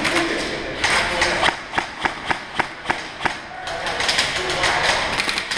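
Airsoft guns firing in an enclosed bunker: a run of sharp single shots about four a second in the middle, then a quicker clatter of shots near the end.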